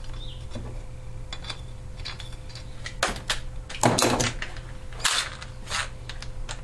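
Metal clicks and clinks of hand tools and parts while the exhaust muffler is fitted to a small Tecumseh lawnmower engine: a few scattered sharp knocks, with a quick cluster about four seconds in.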